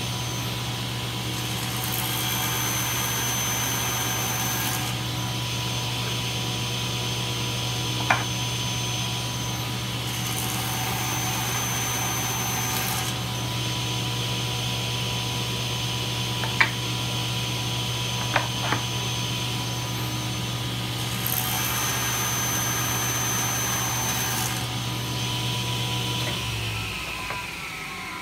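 Table saw running steadily, its blade cutting angled escapement kerfs in wooden plane blanks pushed through on a sled jig: three cuts, each a few seconds of higher-pitched cutting noise over the motor hum. A few sharp knocks fall between the cuts, and the saw is switched off near the end and winds down.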